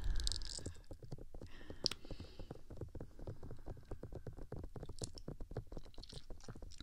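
Fingertips rubbing and tapping on the ears of a HeadRec Binal2 binaural microphone: a rapid run of soft, muffled, low thumps and rubs.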